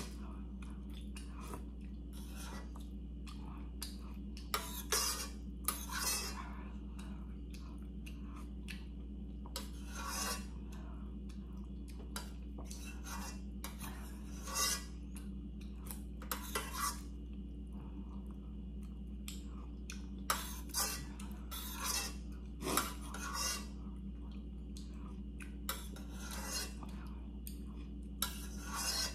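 Metal spoon clinking and scraping against a stainless steel pot of broth in scattered, irregular strokes, over a steady low hum.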